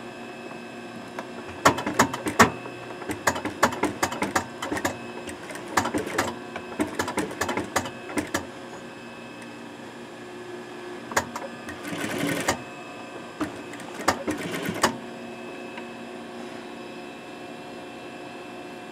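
Juki industrial single-needle sewing machine stitching an elastic ear loop onto a fabric face mask in short spurts. It sews for about seven seconds, pauses, then makes two brief runs, with the steady hum of its motor underneath throughout.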